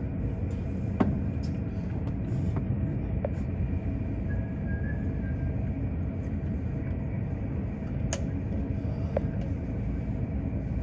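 Steady low rumble of airport ramp noise with a faint steady whine and a few light clicks.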